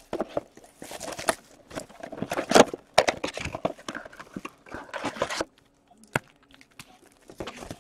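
Cardboard blaster boxes of hockey cards being opened and the card packs pulled out and set down on a table: irregular rustling, crinkling and light knocks, falling quieter about five seconds in, with a few single taps after.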